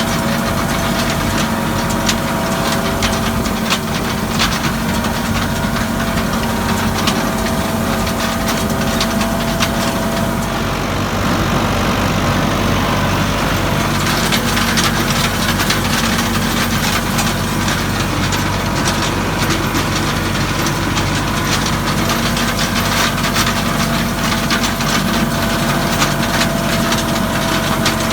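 Tractor engine running steadily with dense clicking and clattering from a hay implement being pulled through the field.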